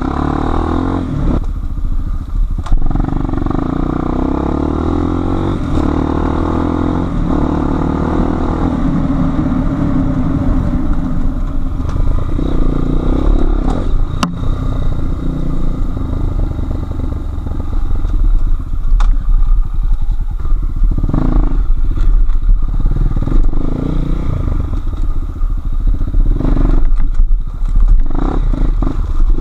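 Enduro motorcycle engine running and revving up and down while riding, with rattles and sharp knocks over rough ground. It gets louder and choppier in the second half.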